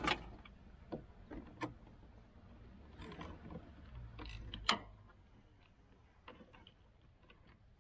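A spanner clicking and clinking on a battery terminal nut as the negative battery lead is reconnected and tightened. The light metal clicks come irregularly, the loudest a little under five seconds in.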